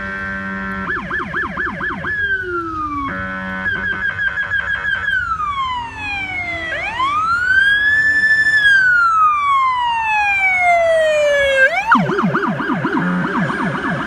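Electronic police siren on a 2017 Ford Explorer patrol car switching between tones: fast yelping sweeps broken by blasts of the buzzy electronic air horn, then one long wail that rises and slowly falls, then back to the fast yelp about twelve seconds in.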